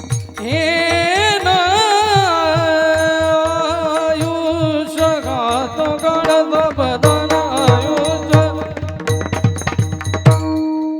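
A woman's high voice singing a long, held, ornamented note in a Marathi devotional kirtan, over steady hand-drum beats.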